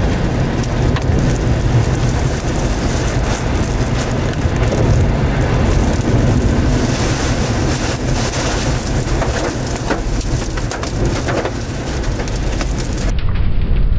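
Strong wind and rain at close range to a tornado: a loud, steady rushing with many sharp patters of drops hitting. About a second before the end the sound turns duller.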